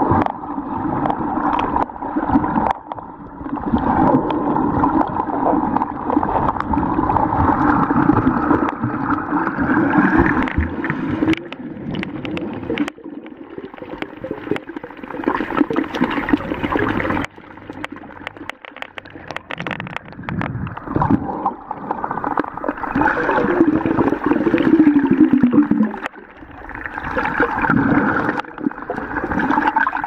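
Muffled underwater gurgling and sloshing of seawater picked up by a camera's microphone while submerged, swelling and fading in surges, with a quieter stretch a little past the middle.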